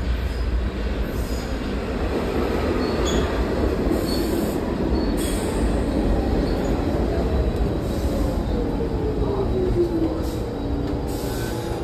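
Subway train pulling into a station, rumbling on the rails, its motor whine falling steadily in pitch as it slows to a stop.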